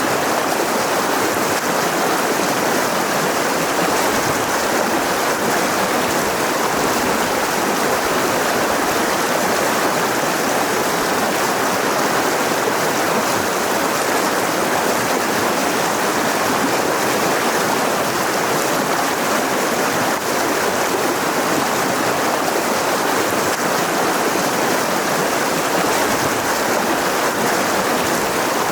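Mountain river rushing over rocks: a steady, even water noise with no breaks.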